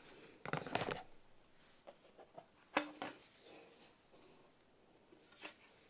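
Plastic case of an Army Painter wet palette being handled and opened: light rubbing and clicking of plastic parts, with one sharper clack about three seconds in.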